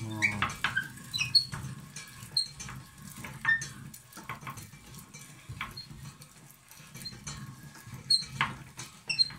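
A hand-cranked metal meat grinder grinding walnut kernels. Irregular crackling and crunching of the nuts comes with short, high squeaks as the crank turns.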